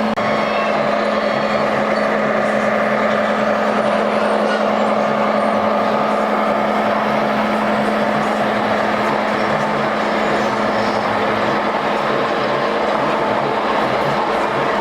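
Steady truck-like engine drone with a constant hum underneath, from radio-controlled model trucks running.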